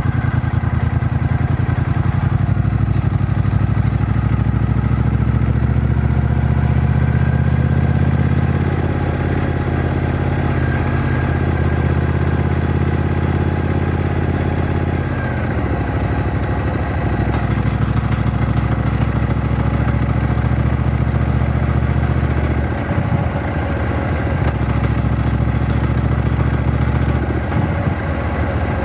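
Triumph Bonneville T120's 1200 cc parallel-twin engine running on the move, a deep steady exhaust note. It eases off about a third of the way in, drops in pitch about halfway, and dips briefly twice near the end.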